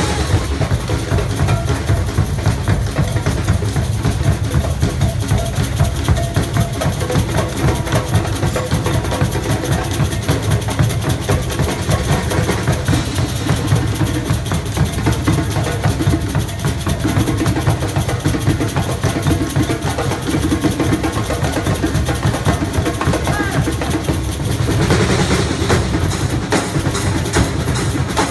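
Live percussion ensemble drumming a fast, dense rhythm, with many drums struck together steadily throughout.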